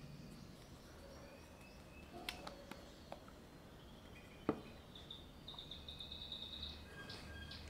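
Faint birds chirping, with a fast high trill about five and a half seconds in. A couple of light clicks about two and four and a half seconds in.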